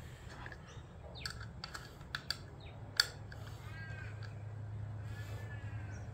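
Light clicks and taps of a Phillips screwdriver and small screws being worked on the motorcycle's exhaust-valve servo motor, with one sharper click about three seconds in. Later, two short rising-and-falling squawks, over a low steady hum.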